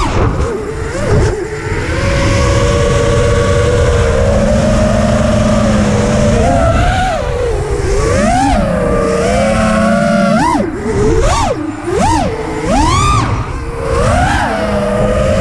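Brushless motors and props of an FPV freestyle quadcopter (T-Motor F40 Pro III, 2400 kv) screaming, the pitch rising and falling with every change of throttle. There are a few quick, sharp throttle punches about ten to thirteen seconds in, over a low wind rush on the onboard microphone.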